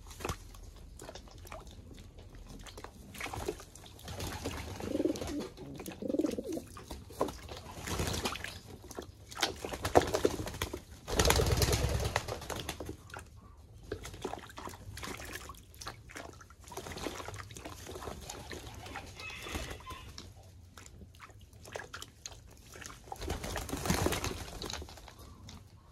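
English Modena pigeons bathing, flapping and splashing in bath water in irregular bursts, loudest about ten to twelve seconds in and again near the end, with a pigeon cooing briefly about five seconds in.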